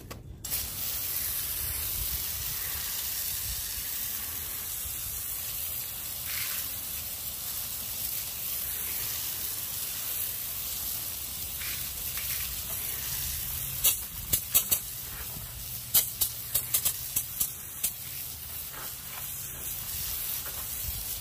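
Water spray rinsing cleaner foam off a car's alloy wheel and tire, a steady hiss of water striking the rim and rubber. About two-thirds of the way through, a run of sharp pops and crackles cuts through the hiss.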